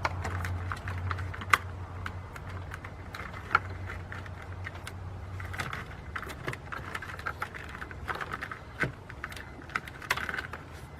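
Irregular clicks and light knocks of hands and small parts, plastic connectors and fittings being worked loose in a car's engine bay, with a few sharper snaps. A low hum in the first few seconds fades out.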